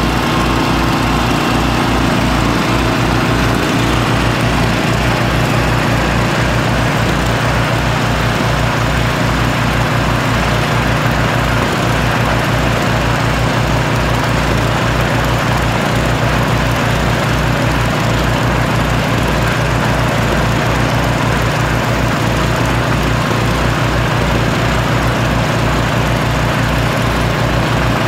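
Homemade topsoil screener at work: its 6.5-horsepower Harbor Freight single-cylinder gas engine running steadily, spinning the counterweighted shaker, with a compact tractor's engine running alongside. A steady low pulsing runs under the engine noise.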